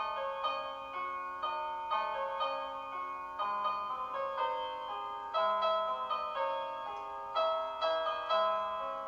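Background music: a piano-like keyboard melody, notes struck about twice a second and each fading away, over longer low notes.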